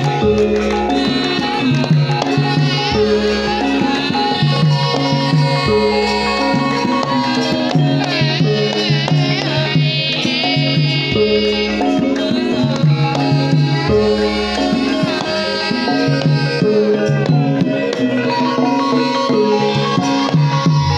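Javanese gamelan music: kendang hand drums keep a rhythm under ringing bronze metallophone and gong tones, with a wavering high melody line around the middle.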